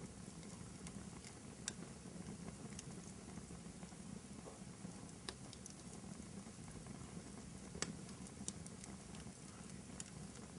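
Fireplace fire crackling: a faint, steady low rumble of flames with a handful of sharp pops scattered through, the loudest about three-quarters of the way in.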